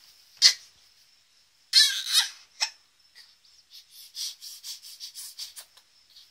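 Baby's high-pitched squeals: a short one about half a second in and a longer, wavering squeal around two seconds, followed by a quick string of short breathy mouth sounds near the end.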